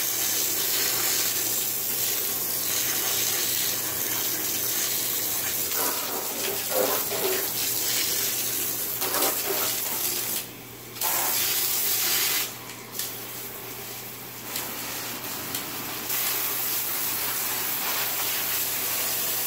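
A hose spray nozzle on its full-pressure setting shoots a jet of water onto porous dry coral rock in a bathtub, making a steady hiss of water. The spray cuts out briefly twice about halfway through, runs lighter for a few seconds, then comes back to full strength.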